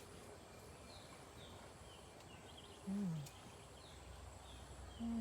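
Quiet outdoor background with small birds giving short, high, falling chirps again and again. A voice makes two brief low falling hums, about three seconds in and at the end.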